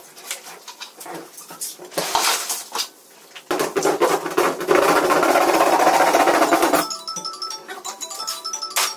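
Background music, with a busy, dense passage through the middle.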